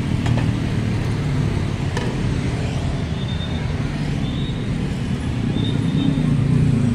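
Steady road traffic noise, a continuous low rumble of passing vehicles, with a couple of faint clicks.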